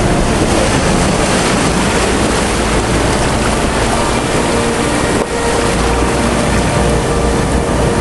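Heavy rain and wind make a loud, steady rushing noise on the microphone, dipping briefly a little past five seconds in.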